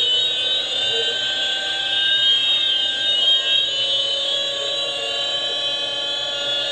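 High-pitched whine of the Airwolf helicopter's engine and rotors, several tones drifting slowly up and down in pitch. It comes from two videos of the same flight playing at once through computer speakers.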